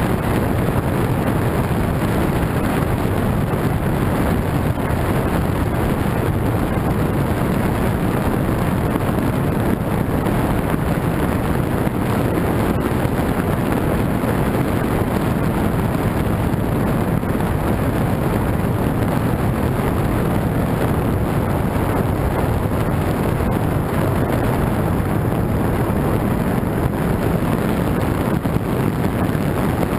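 Small fishing boat running on plane: a steady motor drone and rushing water under the hull, mixed with wind buffeting the microphone.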